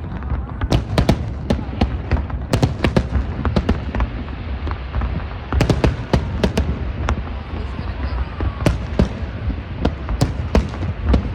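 Fireworks display: a rapid, continuous run of sharp bangs and crackles over a steady low rumble.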